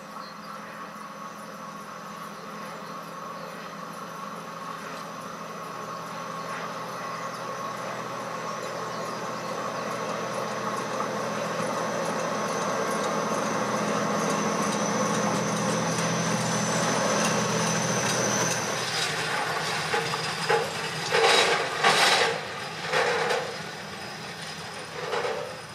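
Vossloh G1700 BB diesel locomotive approaching and passing close by, its engine hum and a high whine growing steadily louder, then falling away about three-quarters of the way through. A torpedo car follows, its wheels on the rails giving a series of loud clanks near the end.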